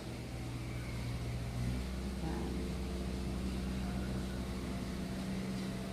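A steady mechanical hum whose pitch steps up a little under two seconds in and then holds level.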